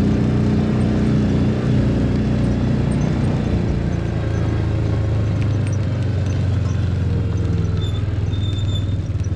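Engine of a small farm vehicle running under way, its note dropping about four seconds in as it slows, settling into a pulsing idle near the end.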